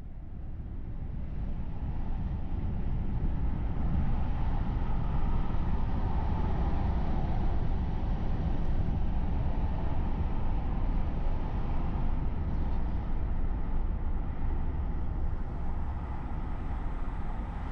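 Car driving: a steady road and engine rumble, fading in over the first couple of seconds and then holding level.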